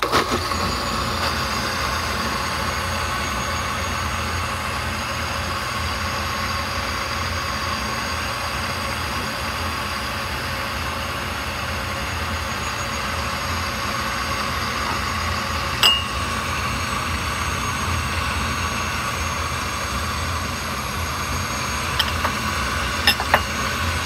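KitchenAid countertop blender switched on and running steadily, blending a thin liquid pudding batter of eggs, milk, sugar and cornstarch. A sharp click about two-thirds of the way through and a few more near the end.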